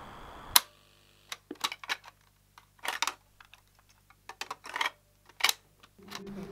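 Held musical tones cut off by one sharp, loud click, followed by an irregular series of sharp clicks and short rattling clatters, mechanical-sounding, with near-silence between them. The held tones come back near the end.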